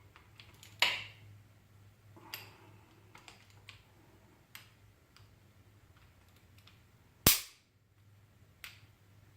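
Hand tools being worked and handled while snugging bolts on an engine block: scattered light clicks and taps, a sharp knock about a second in, and a louder, sharper knock about seven seconds in.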